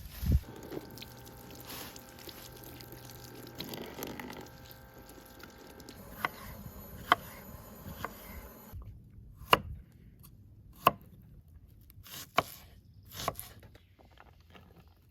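A handful of sharp knocks and clicks, about six, spaced out through the second half, over a faint background with a low steady hum in the first few seconds.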